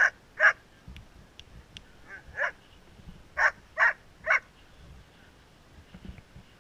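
A dog barking: two sharp barks at the start, one a couple of seconds later, then three in quick succession.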